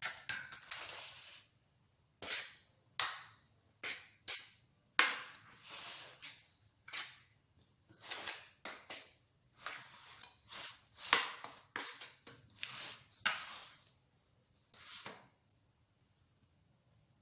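Metal spoon scraping and clinking against a metal cake pan while spreading thick, wet chocolate sauce over a cake, with soft squelching: a long irregular run of short strokes, a few of them sharp clinks.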